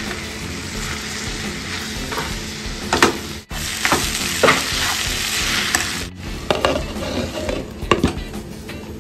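Shredded cabbage, carrot, capsicum and onion stir-frying in a pan: a steady sizzle, with the scrapes and clacks of a spatula tossing the vegetables from about three seconds in. The sound breaks off abruptly twice.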